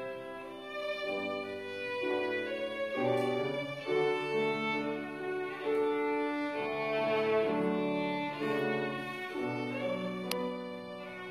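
Slow instrumental string music, with a violin playing long held notes over lower strings.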